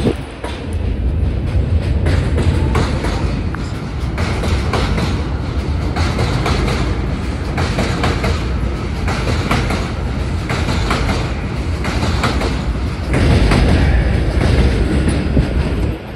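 Subway train running on the rails: a steady low rumble with wheels clicking and clattering over rail joints, growing louder near the end.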